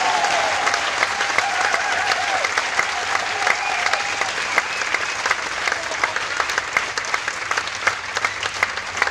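Audience applauding, the clapping thinning out toward the end so that single claps stand out.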